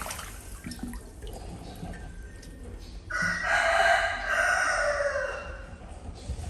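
A rooster crowing once, about three seconds in, for about two seconds, its pitch falling off at the end.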